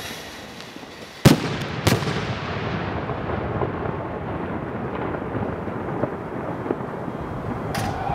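Fireworks bursting overhead: two sharp bangs about a second in, half a second apart, followed by a continuous rumble of further bursts.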